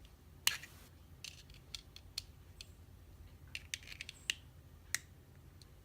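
Small metal tool prying at the tight retaining ring on a Wilka euro lock cylinder: a scattering of sharp metallic clicks and scrapes, the loudest about half a second in.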